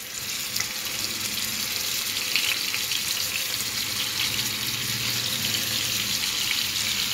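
Masala-coated vatta fish pieces sizzling and crackling steadily in hot oil in a non-stick frying pan as they start to fry.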